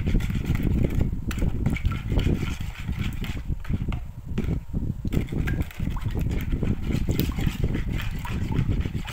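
Metal spoon stirring raw eggs into a milky liquid in a plastic bowl: many quick clicks and scrapes of the spoon against the bowl, with liquid sloshing, over a steady low rumble.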